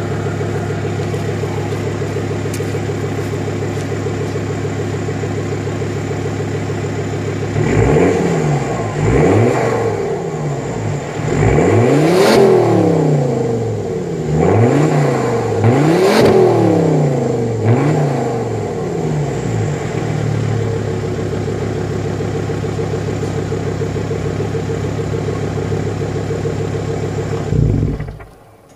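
Alfa Romeo 159 2.4 JTDm five-cylinder turbodiesel breathing through LRS straight-through tailpipes (twin 102 mm rolled-edge tips). It idles steadily, is revved in a series of about eight throttle blips, settles back to idle, and cuts off near the end.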